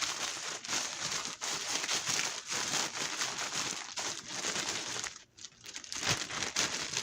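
Chicken breasts being shaken in a bag of seasoned breadcrumbs to coat them: a crinkling, rustling shake that stops briefly about five seconds in, then picks up again.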